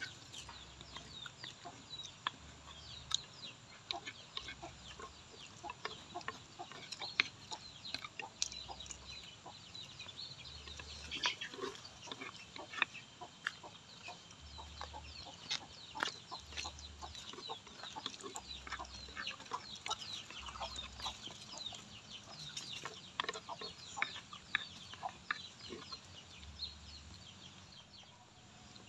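Spoons clinking and scraping on clay plates, with small eating noises, as two people eat. Chickens cluck in the background.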